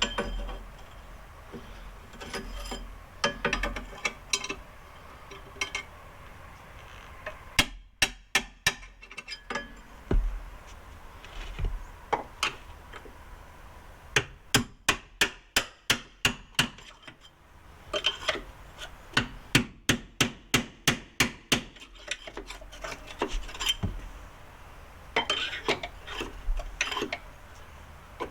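Hammer striking a steel punch to drive out the Jeep XJ's front control-arm mounting pins, in runs of rapid metal-on-metal blows, about four a second, with quieter knocks and scraping between runs.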